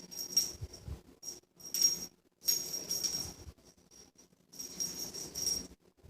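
Small bell in a cat toy jingling in irregular bursts, about half a dozen, as a kitten bats and plays with the toy.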